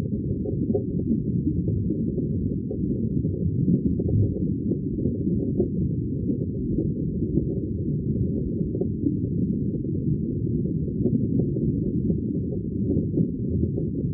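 Steady, muffled low rumble of noise with nothing above the low range: a background ambience sound effect laid under the slideshow.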